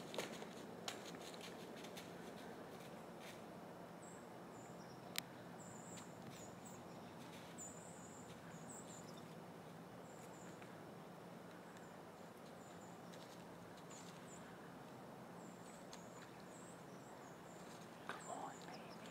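Quiet woodland ambience with a faint steady hum and high, short bird chirps repeating over and over, plus a couple of sharp clicks. Near the end come a few rustles in dry leaves from a white-tailed deer stepping along a creek.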